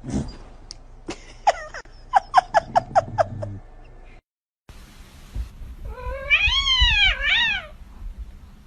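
Cat vocalising: a quick run of short, chirping calls, about six a second, then after a brief break one long, wavering meow that rises and falls twice.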